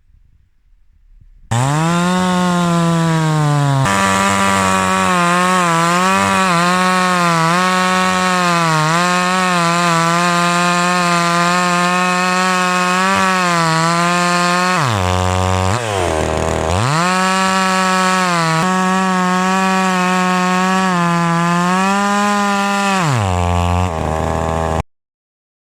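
Flinke FK 9600 two-stroke petrol chainsaw run at full throttle through wood, its high engine note dipping again and again under the load of the cut. About halfway through, the revs fall away to a low note and climb back up. Near the end they sag again, then the sound cuts off suddenly.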